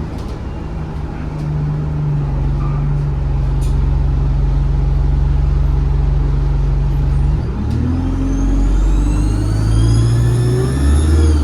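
ADL Enviro 200 bus engine heard from inside, running steadily under load. About seven and a half seconds in the engine note shifts and climbs, and a high-pitched turbo whistle rises with it, then drops away sharply at the end as the throttle comes off.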